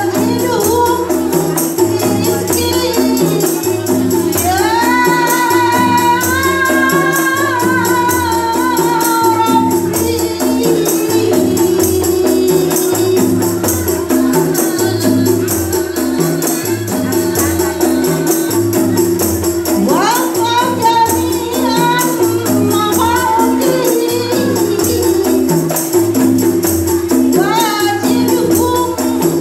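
Qasidah music from a women's group: tambourines, frame drums and shakers keep a steady repeating rhythm under a held tone, while a woman sings a gliding melodic line, loudest about five seconds in and again near twenty seconds.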